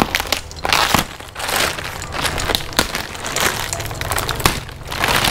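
Plastic bale wrapping being slit with a knife and pulled open by hand: crinkling and tearing plastic in several bursts, with sharp cracks.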